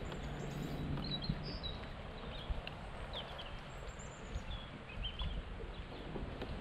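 Small birds chirping faintly, a scatter of short high calls every second or so, over a steady low outdoor background.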